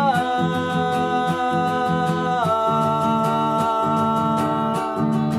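A man's voice holding a long sung note that drops in pitch twice, over acoustic guitar strummed in a steady rhythm.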